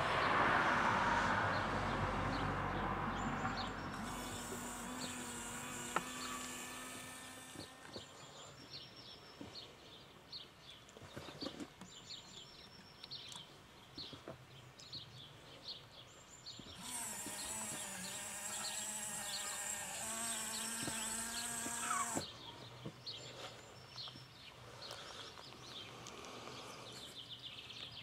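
Small electric motor in a model warning-sign trailer whirring twice, a few seconds each time, as it folds the sign panel down and later raises it again. Birds chirp throughout, and a louder rush of noise fades over the first few seconds.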